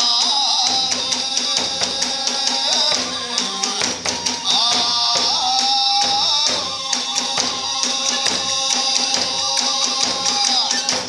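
Iwami kagura hayashi ensemble playing fast: rapid drum strokes under the constant ringing of tebyōshi hand cymbals, with a fue bamboo flute holding a high melody that pauses briefly about four seconds in.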